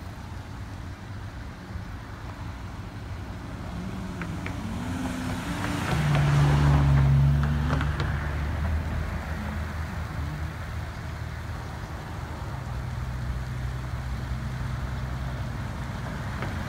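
A car passing on the road close by: engine and tyre noise build up and are loudest about six to eight seconds in, then a steady low engine hum carries on.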